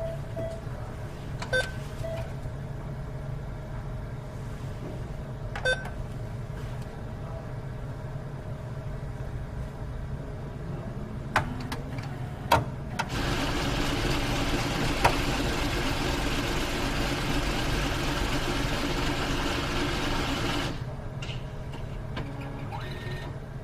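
Automated teller machine (ATM) in use. A keypad beeps at a few button presses, then a motor whines up and the internal dispensing mechanism whirs steadily for about seven seconds before stopping abruptly, with a few clicks after. A low machine hum runs underneath.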